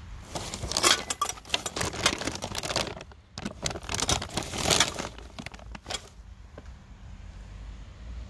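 A plastic bag crinkling and small glass jars clinking as the bag of discarded artificial flowers and glassware is handled. The sound comes in two dense stretches, the second shorter, followed by a few single clicks.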